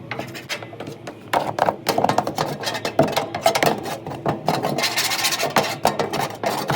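Rubbing and scraping as packed lint and dirt are cleared out of a clothes dryer's lint-filter housing: irregular scratchy strokes that get louder about a second and a half in.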